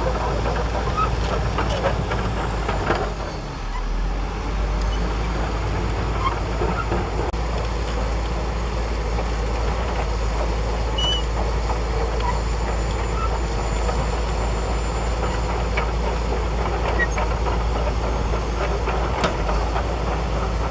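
Shantui DH17C2 bulldozer's diesel engine running steadily at work, with a few sharp metallic clanks and a brief dip in level about three seconds in.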